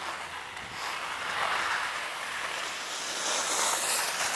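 Skis sliding over packed piste snow: a steady scraping hiss that swells and eases as the skier turns, with some wind over the microphone.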